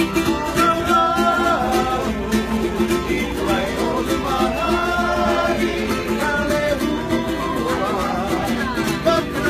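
A group of men singing together to a strummed string instrument, with a steady strumming rhythm under the voices.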